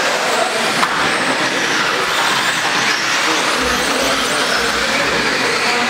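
Several 1/10-scale electric off-road RC buggies racing on a dirt track: a steady mix of motor whine and tyre noise, with one short sharp knock about a second in.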